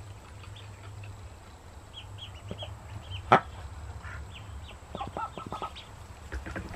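Newly hatched ducklings peeping in short high chirps, a single sharp click about three seconds in, then the broody Golden 300 mother duck giving a quick run of about half a dozen short low quacks as she guards her nest, with a few more near the end.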